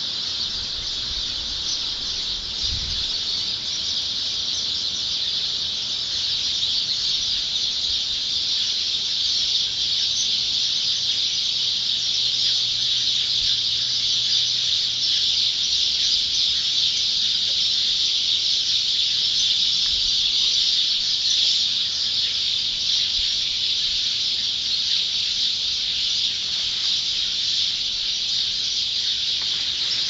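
A dense dawn chorus of many birds chirping at once: a continuous, high-pitched chatter of countless overlapping calls with no pause.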